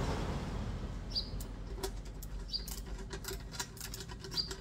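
Ratchet wrench clicking in quick runs, mostly in the second half, as the bolts holding the pump motor to the pressure tank are tightened. A faint short high chirp sounds three times.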